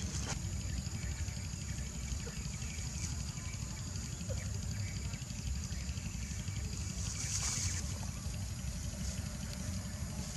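Steady low outdoor rumble with a faint high hiss above it. About seven and a half seconds in comes a brief rustle of dry grass as a baby macaque moves through it.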